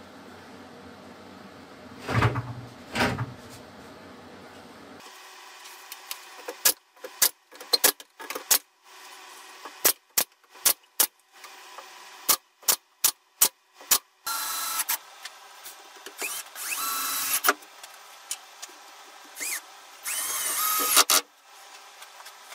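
A couple of knocks on wood, then a pneumatic nail gun firing a quick run of nails into pallet boards, about a dozen and a half sharp shots. Near the end a power drill runs in two longer bursts, its motor whine rising and falling.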